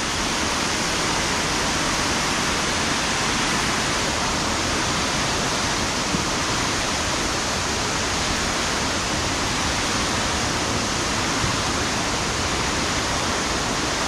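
Waterfall swollen by heavy rain, a steady rush of falling water.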